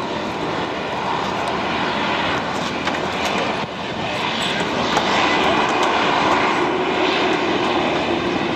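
An airplane engine running steadily, a loud, even drone that dips briefly a little before four seconds in and then carries on slightly louder.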